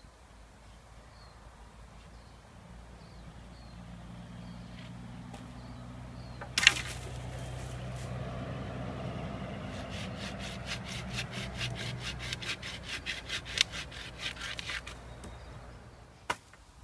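Hand saw cutting a green sapling in a run of quick, even strokes for about five seconds, after a sharp crack of wood about a third of the way in; another sharp crack comes near the end. A low hum swells and fades underneath.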